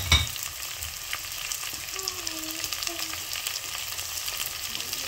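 Freshly added chopped onions frying in hot oil in a clay pot: a steady sizzle with fine crackling all through. A short thump right at the start.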